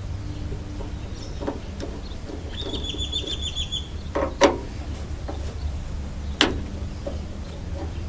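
Hand work on a van door: light taps and two sharp knocks about two seconds apart over a steady low hum. A short, rapid bird trill about three seconds in.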